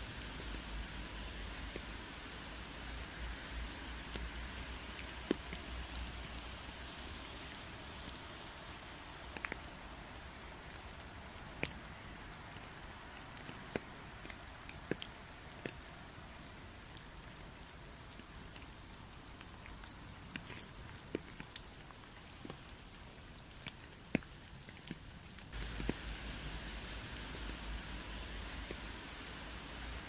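Steady rain falling, with scattered single drops standing out as sharp ticks.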